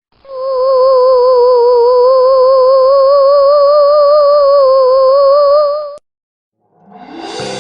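A single held musical note with a steady, even vibrato, lasting about five and a half seconds and cutting off abruptly. After a short silence, tinkling bell-like music begins near the end.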